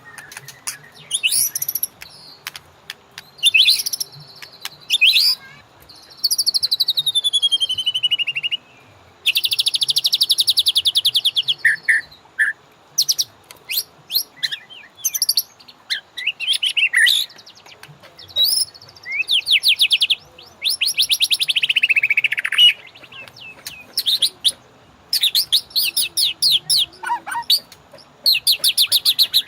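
White-rumped shama (murai batu) singing a varied song: loud, rapid rattling trills, whistles that slide down in pitch and short chirps, in phrases separated by brief pauses.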